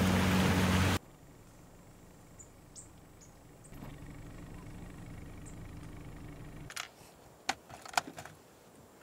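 Motorboat engine running with water rushing past the hull, cut off abruptly about a second in. After a quiet stretch with a faint low hum, several sharp plastic clicks and rattles follow near the end as a clear plastic lure box is handled.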